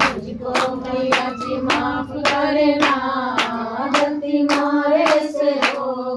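Rhythmic hand clapping, about three claps a second, keeping time to a devotional bhajan over a steady held melody line.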